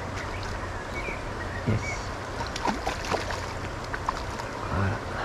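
River water running steadily over stones, with a few short clicks and small gurgles over the rush.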